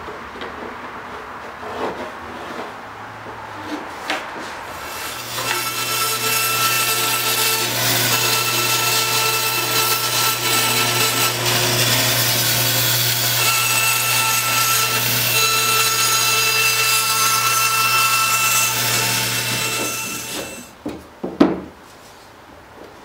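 Bandsaw cutting a cedar strip along a marked curve: the motor runs with a steady hum under the sawing for about fifteen seconds, then stops. A few sharp knocks follow near the end.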